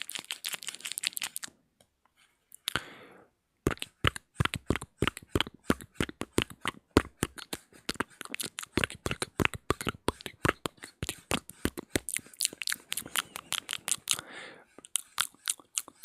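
ASMR mouth sounds close to the microphone: rapid wet clicks and pops of the tongue and lips, several a second, with a breathy hiss about three seconds in and again near the end.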